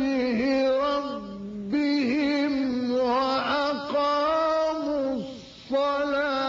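A man's voice chanting Quran recitation, holding long, ornamented melodic notes. It softens for a moment about a second in, then breaks off briefly about five seconds in before taking up the next phrase.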